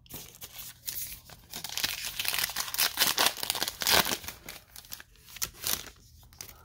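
A Diamond Kings baseball card pack wrapper torn open and crinkled by hand: a dense crackling of many quick crinkles, loudest in the middle and thinning out near the end.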